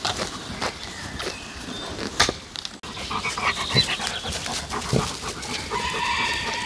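German Shepherd panting close up, a quick run of short breaths, from about three seconds in. Birds chirp in the background.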